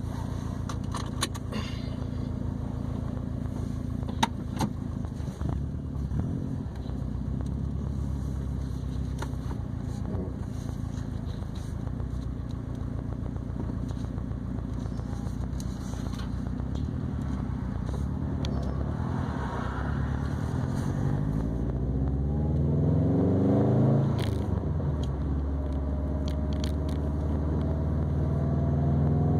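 2020 Subaru WRX STI's turbocharged flat-four exhaust, through an ETS non-resonated catback and Grimmspeed catted downpipe, droning steadily at cruise. In the last third it rises in pitch under acceleration, drops sharply at a gear change, then climbs again. A few sharp clicks come near the start.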